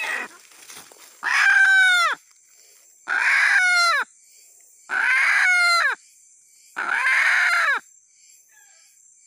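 Male red junglefowl held in a snare, giving four loud calls about two seconds apart, each about a second long and dropping in pitch at the end.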